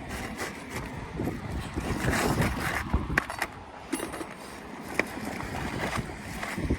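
Rough scraping and rustling of an asphalt shingle being handled and slid into place, with a few sharp clicks and knocks.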